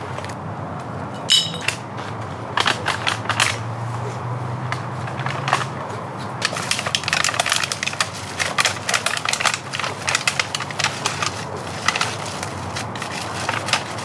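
Bottles and cans clattering and crunching as they are handled and packed into a plastic bag and crate on a bicycle cargo trailer, in many quick irregular clicks and rustles that grow busier in the middle.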